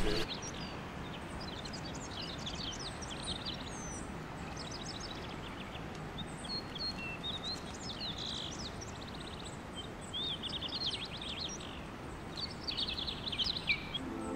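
Birds chirping and twittering: many short, high chirps and trills over a steady background hiss.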